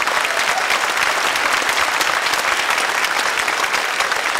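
A large audience applauding, dense and steady.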